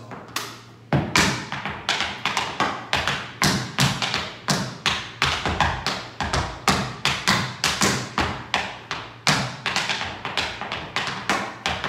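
Tap shoes' metal taps striking a wooden studio floor in an entry-level tap combination danced without music: a quick, uneven rhythm of sharp taps and heavier heel drops, several a second, starting just under a second in.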